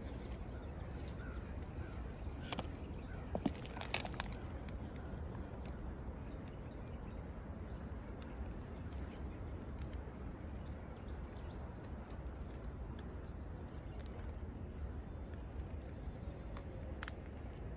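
Steady wind rumbling on the microphone outdoors, with scattered short high bird chirps and calls throughout. A few sharp clicks or crunches come about three to four seconds in.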